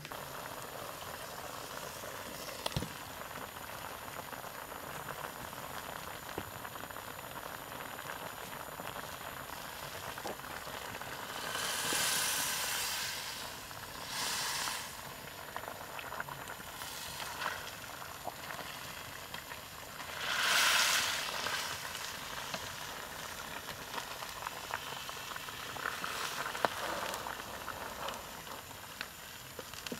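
Pork stew boiling in a steel wok, with a steady bubbling sizzle. A few louder splashing swells, each about a second long, come as a ladle stirs and pours the broth.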